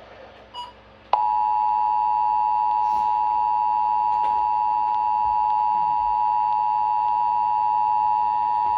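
Emergency Alert System attention signal: the steady two-tone alarm of 853 and 960 Hz sounded together. It begins about a second in and holds unchanged, announcing a child abduction (AMBER Alert) message.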